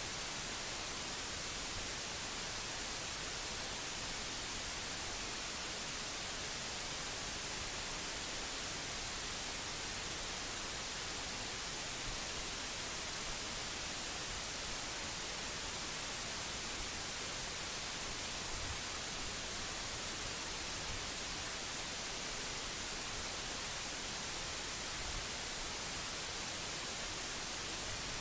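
Steady hiss of an open recording microphone's self-noise, strongest in the treble and unchanging throughout; nothing else is heard.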